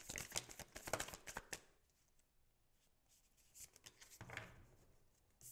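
Tarot cards handled in the hands: a quick run of card flicks for about a second and a half, then a pause and softer rustling of cards being drawn from the deck.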